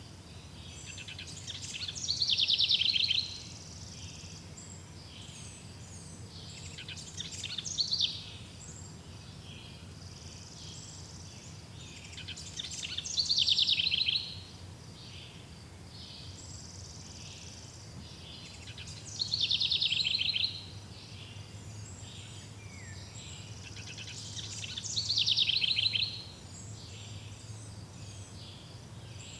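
A songbird singing the same loud phrase about every six seconds: each phrase is a rapid trill of about two seconds that builds and then stops abruptly. Fainter chirps of other birds and a low steady hum fill the gaps.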